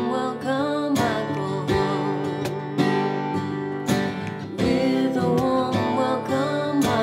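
Music: a song with strummed acoustic guitar.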